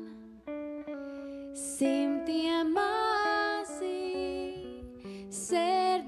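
Latvian folk song arrangement played live: a woman singing over electric guitar, bass guitar and keyboard. The music thins briefly near the start, then the voice comes back in.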